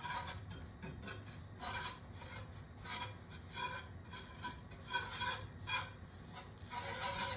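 A utensil scraping and rubbing across the bottom of a cast iron skillet in repeated strokes, stirring melting butter and brown sugar into a caramel sauce.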